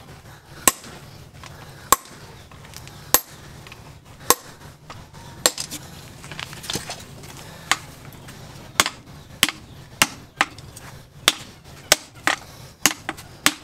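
Hammers striking a red-hot steel axe head on an anvil during hand forging: sharp blows about one a second at first, coming quicker and closer together in the second half, over a steady low hum.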